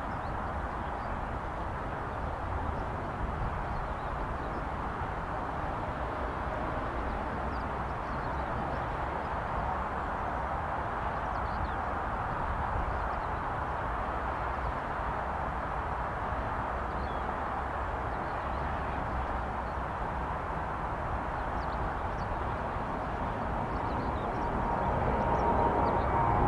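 Distant jet engines of a Boeing 787 airliner climbing out, a steady rumble heard from the ground.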